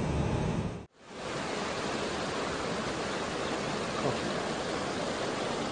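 Vehicle road noise with a low rumble, cut off abruptly just under a second in. Then a steady rushing hiss.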